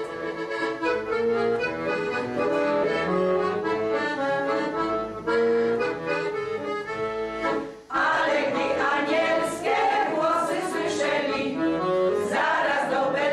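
Accordion playing an instrumental interlude of a Polish Christmas carol. About eight seconds in, a women's folk choir comes back in, singing over the accordion.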